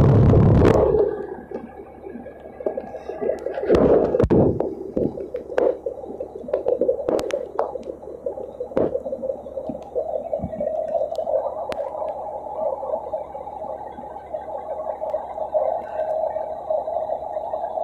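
A loud engine runs and cuts off about a second in. Then a steady bubbling, gurgling sound runs on, with scattered knocks.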